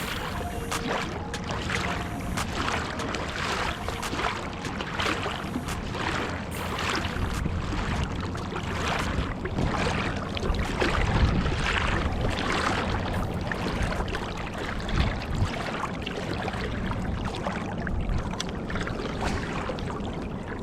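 River water lapping and splashing in uneven strokes over a low steady rumble.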